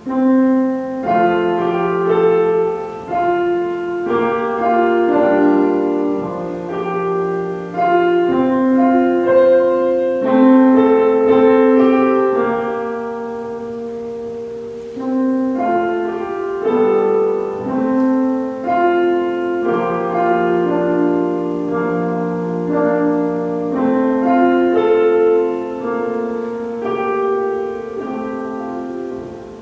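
Grand piano played solo, a slow piece of chords and melody notes, growing softer for a couple of seconds about halfway through before picking up again.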